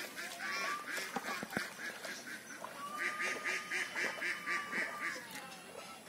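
A duck quacking in two fast runs of about five quacks a second, a short run at the start and a longer one about halfway through.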